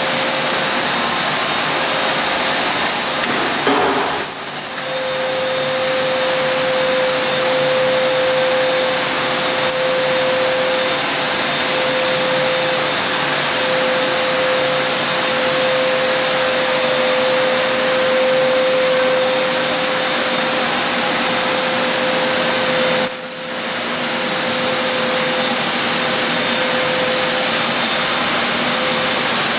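DingTec ZL3000-S high-frequency welding machine running while it seams PVC banner: a steady, loud rushing like a blower with a steady mid-pitched hum through it. Two brief clicks come about four seconds in and again about twenty-three seconds in.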